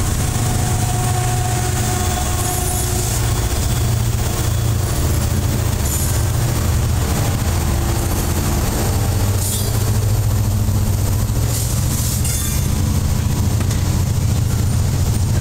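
Freight train passing close by: the trailing diesel locomotives rumble low and steady, then covered hopper cars roll past, their steel wheels on the rails. A few brief high squeals come from the wheels along the way.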